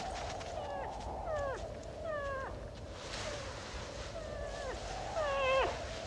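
Grizzly bear cubs squealing and whining in play: a string of short cries, each falling quickly in pitch, about one every second, growing loudest near the end.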